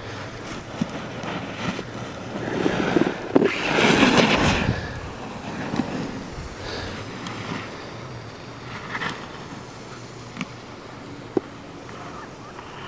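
Alpine race snowboard edges carving across hard-packed snow: a hissing scrape that swells and fades as a rider passes close, loudest about four seconds in, with fainter carving sounds and a sharp tick near the end.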